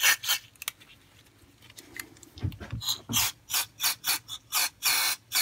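Aerosol carburettor cleaner hissing through its extension straw into the passages of a mower carburettor: a quick spray at the start, then a run of short bursts from about halfway, the last one longer. The bursts blast the jets and drillings clear.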